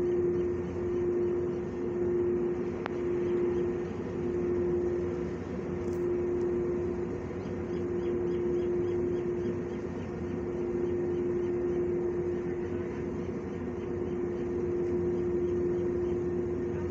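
Steady mechanical hum holding one constant low tone over a broad even rumble.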